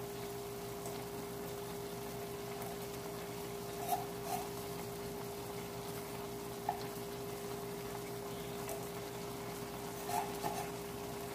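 Food simmering faintly in a wok over a steady kitchen hum, with a few light clicks and taps from a seasoning jar shaken over the pan.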